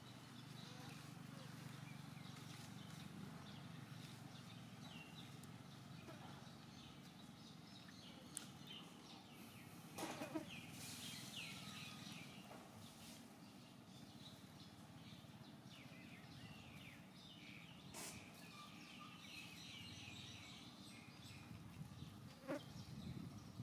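Faint outdoor ambience: a steady low hum with scattered soft high chirps and a few short clicks.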